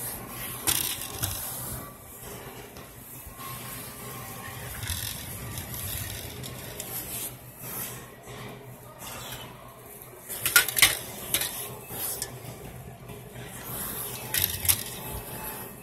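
Wire shopping cart rattling and clattering as it is pushed along a store floor, with the sharpest clanks a little past the middle and again near the end, over a steady background hum.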